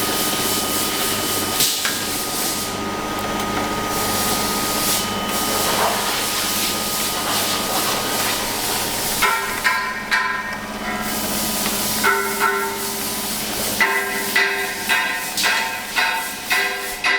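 Steady workshop noise, then from about nine seconds in a run of hammer blows that ring after each strike, coming about two a second near the end.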